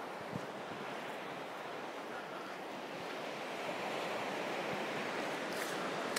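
Ocean surf washing on the beach, a steady rushing that grows a little louder about halfway through.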